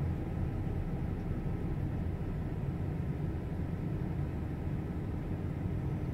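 Steady low rumble of an idling vehicle, even throughout, with a faint hum over it.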